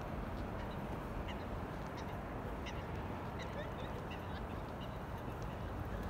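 Steady outdoor city hum with a low rumble, under the light ticking of footsteps on paving. A few short, faint bird calls come around the middle.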